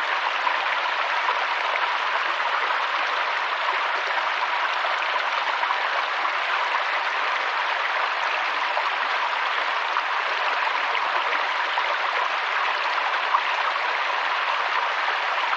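Mountain stream flowing: water rushing and splashing over rocks as a steady, even rush of noise.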